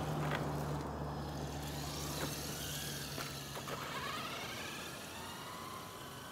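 Traxxas TRX-4 radio-controlled crawler's electric motor and gears whining as it drives on asphalt, the whine rising and falling in pitch. A steady low hum underneath stops about four seconds in.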